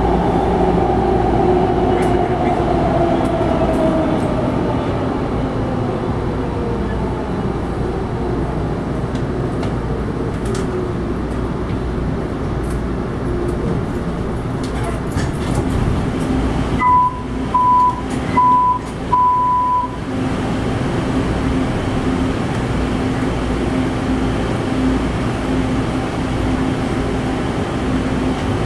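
Tren Urbano subway car's motors whining down in pitch as the train brakes into a station, then a steady hum while it stands. About two-thirds of the way through, the door chime beeps four times.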